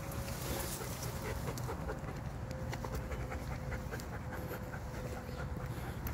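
Dog panting in quick, even breaths.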